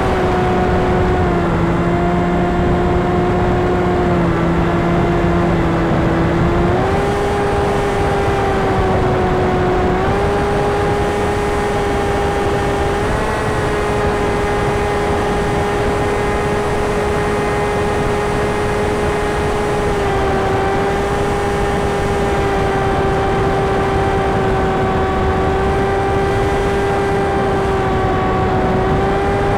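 Brushless electric motor and propeller of an RC FPV plane in flight, a steady whine that shifts pitch slightly a few times as the throttle changes, over constant rushing air noise.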